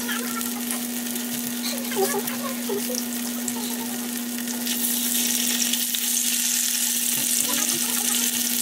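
Skinless longganisa sausages sizzling as they fry in oil in a nonstick pan; the sizzle grows louder about five seconds in. A steady low hum runs underneath.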